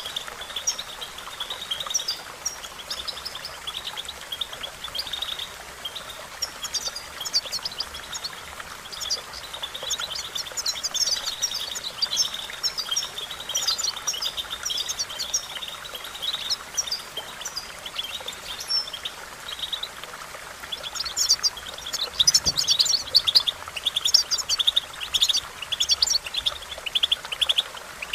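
European goldfinch song: bouts of rapid, twittering chirps and trills, busiest in the second half.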